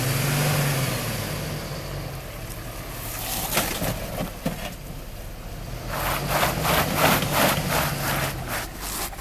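A 4x4 truck engine rises in revs briefly at the start, then runs at low speed as the truck crawls over rocks. In the last three seconds a rough, rapid crackling noise joins it.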